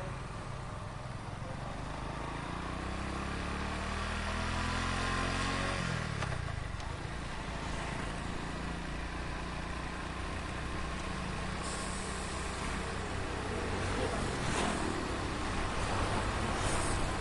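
Heavy street traffic heard from a moving taxi, with steady road noise. An engine's pitch rises from about two seconds in and falls away sharply a few seconds later.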